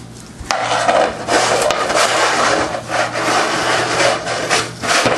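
Continuous scraping and rubbing against a hard wood-look floor. It starts suddenly about half a second in and swells and dips unevenly.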